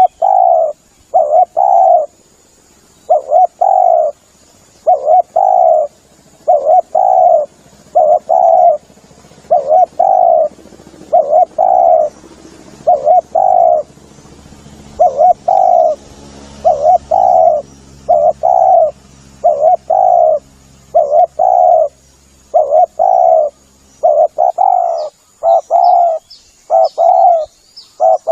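Spotted dove cooing over and over, as a lure call: short coo notes repeated about once a second, some in quick pairs. A faint steady high hiss runs underneath, and a few faint small bird chirps come near the end.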